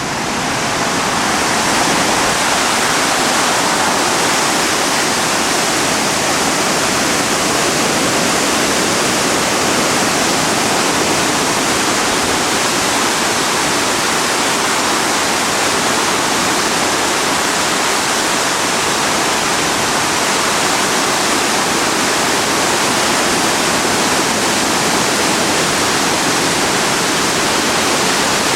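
The Driva river in a fifty-year flood, a steady heavy rush of fast floodwater that builds over the first two seconds and then holds even.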